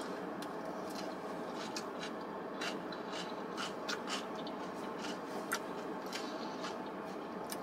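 Someone eating a salad: a fork picking and scraping in the bowl with small scattered clicks and crunches, over a steady background hum.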